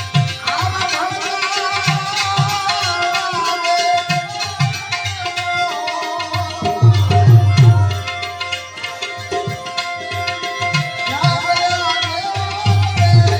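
Instrumental Gujarati devotional bhajan music: hand drums play a steady rhythm under a wavering melodic instrument line that slides between notes.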